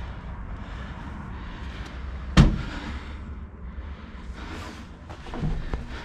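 A glass balcony door being pushed open and gone through, with a sharp knock about two and a half seconds in and two lighter knocks near the end. A steady low rumble runs underneath.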